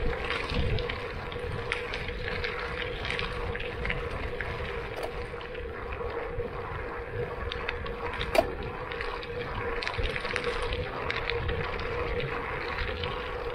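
Lauf Anywhere gravel bike rolling over hard-pack gravel with loose rocks: a steady rush of tyre noise and wind with small rattles and clicks, and one sharp click about eight seconds in.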